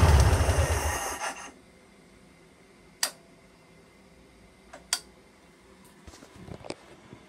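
Air-cooled VW Beetle flat-four with a stainless rear exhaust box running on a test rig, then shut off about a second in and running down to a stop. Then two sharp clicks from the rig's push-button switch panel, about two seconds apart, and a few faint knocks near the end.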